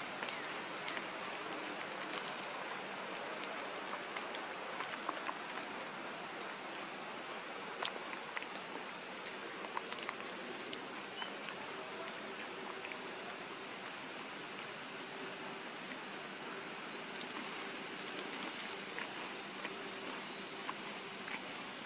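Outdoor ambience with a steady, high insect trill and a few scattered faint clicks.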